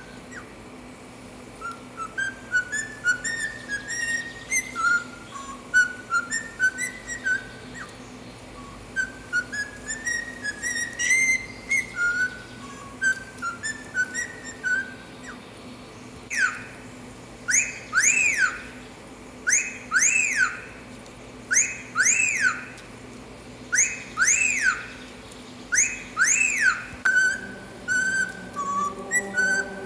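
Cockatiel whistling: first a tune of short whistled notes stepping up and down, then, from about halfway, a wolf whistle ("fiu-fiu"), each a rising-then-falling sweep, repeated several times.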